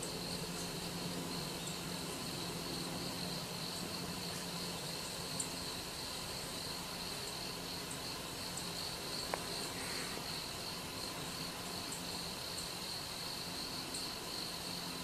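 A steady, continuous high-pitched insect chorus, with a faint low hum underneath and one sharp click about nine seconds in.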